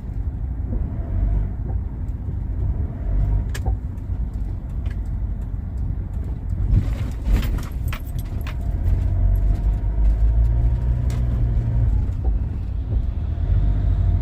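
Mitsubishi Pajero Full accelerating: a steady low engine and road rumble that grows louder about nine seconds in, with scattered sharp clicks and knocks, most of them clustered about seven seconds in. The knocking from the rear under throttle is a drivetrain clunk that the owner takes to be probably a loose nut at the end of the rear half-shaft, where it enters the wheel.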